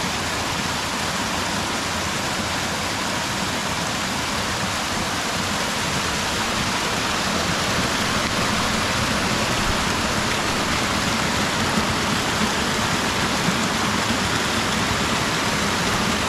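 Steady rushing of flowing river water, an even hiss with no breaks, growing a little louder about halfway through.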